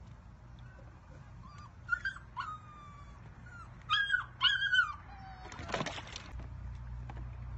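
Puppy whimpering: several short, high cries that drop in pitch, loudest and closest together about four to five seconds in, followed by a short burst of noise near six seconds.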